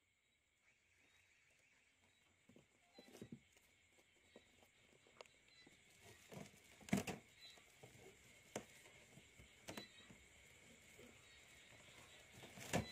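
Faint handling noise as a baby monkey plays with a crinkly strip of plastic on a bed: soft rustles and thumps, with a sharper knock about seven seconds in and another near the end.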